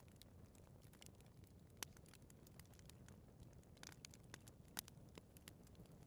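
Fireplace fire crackling quietly: a low steady rumble of flames with frequent small ticks and pops, and two sharper pops about two seconds and five seconds in.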